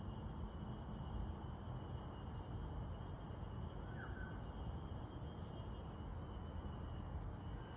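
Steady high-pitched drone of a tropical forest insect chorus, running without a break, with a faint brief chirp about four seconds in.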